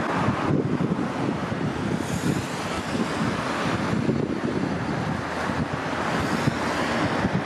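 Steady road traffic on a multi-lane highway, tyres and engines of passing cars, mixed with strong wind buffeting the microphone in a low, gusty rumble. A brighter tyre hiss rises for a moment about two seconds in.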